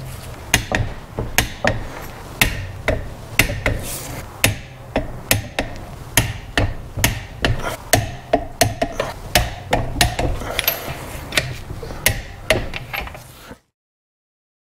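Ratchet wrench clicking in short strokes, sharp clicks a couple of times a second, as the nuts clamping the two aluminium crankcase halves of a Corvair flat-six are run down and tightened, over a low steady hum. The sound cuts off suddenly about a second before the end.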